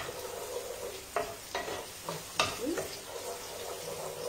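Chopped onion and garlic sizzling as they fry in oil in a pan, with a wooden spoon stirring and knocking against the pan several times.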